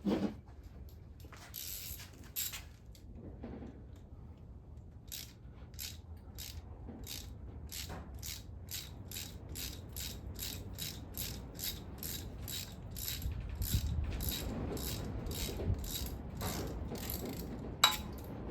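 Hand ratchet wrench clicking in a steady run of quick back-strokes, about two to three a second and speeding up slightly, as a bolt is backed out of the front of the engine; a few metal clinks come before it and a single sharper click comes near the end.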